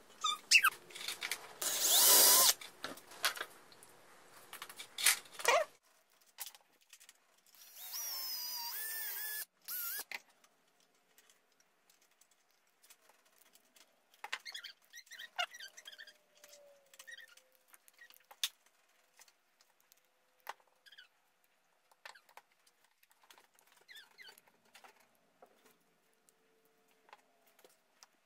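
Cordless drill/driver running for about two seconds, its whine rising and falling as it drives a screw into a wooden clamp arm. Around it, light clicks and knocks of wooden parts being handled, and a short loud burst of noise about two seconds in.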